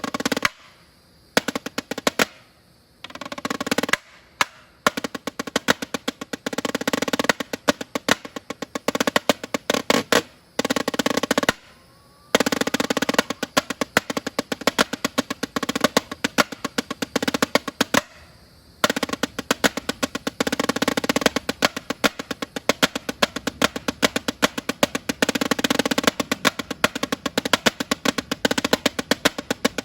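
Snare drum played freestyle: fast rolls and rapid runs of strokes, with the head ringing under them. Several short pauses break up the playing in the first eighteen seconds, then it runs on without a break from about nineteen seconds in.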